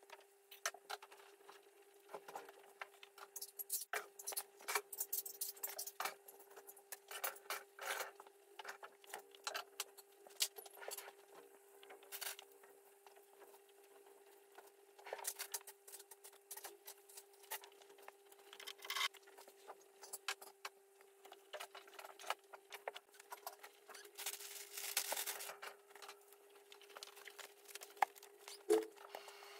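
Close handling noises: irregular light clicks, taps and rustles of things being picked up and set down, with a longer rustle about 25 seconds in, over a faint steady hum.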